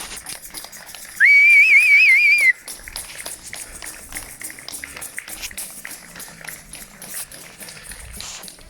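Many people clapping in steady, dense applause, with one loud trilling whistle blast about a second in that lasts just over a second.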